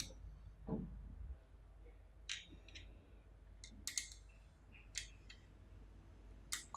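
A small screw and screwdriver being worked into the mini PC's case: a handful of light, separate clicks and ticks spread a second or so apart.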